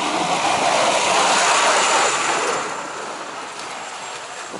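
A vehicle passing close by, a loud rushing noise that swells over the first two seconds and then fades away.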